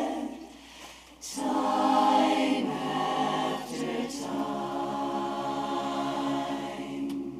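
Women's barbershop chorus singing a cappella in close four-part harmony, holding long chords. The sound softens about half a second in, swells into a new chord, and a long chord is held through the second half.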